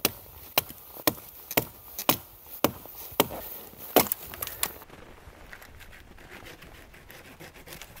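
Axe chopping into wood: about nine sharp strikes roughly half a second apart, stopping about five seconds in.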